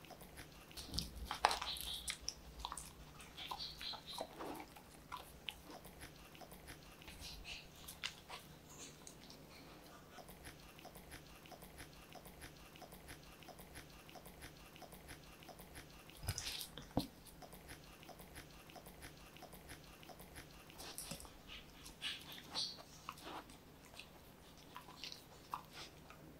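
A dachshund eating soft chicken-and-tofu food off a slate board: faint wet chewing and licking with scattered small clicks, in louder clusters about a second in and again around the middle and near the end.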